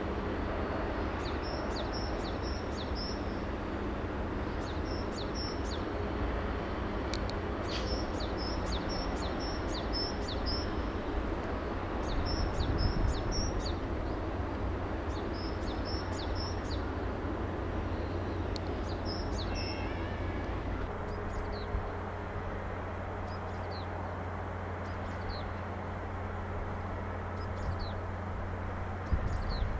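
Small birds chirping in quick runs of four or five high notes, repeated every couple of seconds, then only single short chirps from about two-thirds of the way through. Under them runs a steady low hum and background noise.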